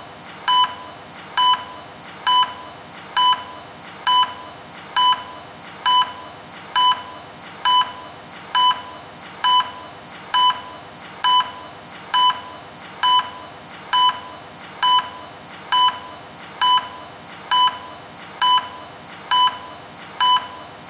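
Electronic beeps repeating evenly, a little more than one a second, each a short steady tone with a weaker tick just before it, over a low steady background hiss.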